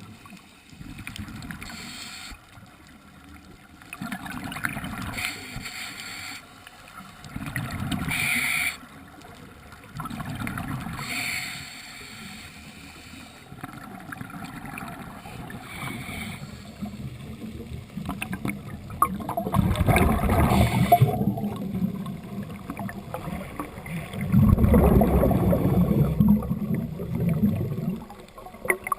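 Water sloshing and gurgling in uneven surges, louder and deeper twice in the second half.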